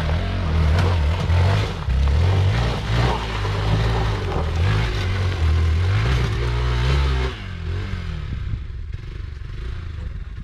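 Off-road vehicle engine revving up and down while driving a rough track. The engine sound falls away sharply about seven seconds in.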